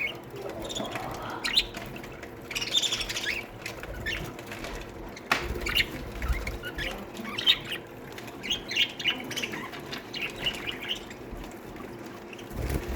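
A colony of budgies in an aviary chirping, with many short, overlapping high calls and now and then wings flapping. A single sharp click comes about five seconds in.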